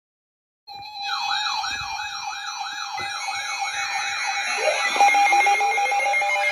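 Several electronic alert sounds layered at once, starting abruptly just under a second in: a steady alert tone under a fast siren-like yelp that sweeps up and down about four times a second, with higher warbling tones above. More tones and rising glides pile in around the middle.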